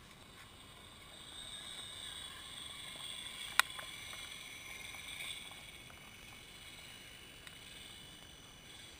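Electric motor and gear drivetrain of an RC4WD Trail Stomper 1/10-scale rock crawler whining faintly as it crawls over the camera, growing louder toward the middle and then easing off. A single sharp click comes about three and a half seconds in.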